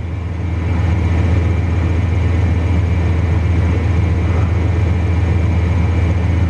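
Truck engine idling steadily, heard from inside the cab as a low, even hum.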